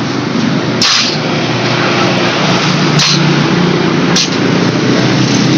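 Small motor scooter engine running steadily, with a few brief hisses over it.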